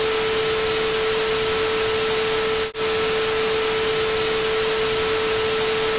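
Television static hiss with a steady tone running under it, a glitch transition effect; it cuts out for an instant about two and a half seconds in.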